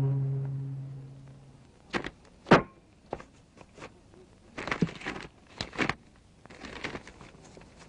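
A low, held bowed-string chord fades out over the first second or two. It is followed by scattered short knocks and clatters, the loudest about two and a half seconds in, with small clusters near five and six seconds.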